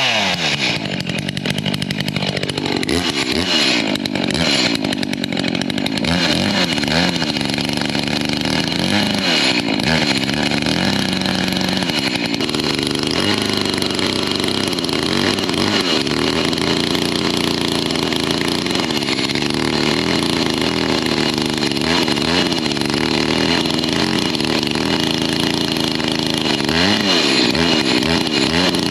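Gasoline chainsaw running at high revs, its engine pitch dipping and rising again and again as the chain cuts into wood.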